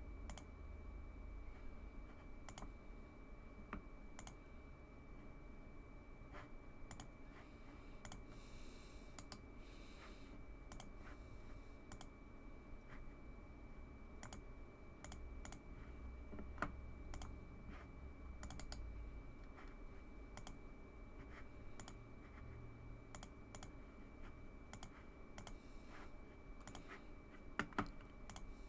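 Faint computer mouse and keyboard clicks, irregular, sometimes several in quick succession.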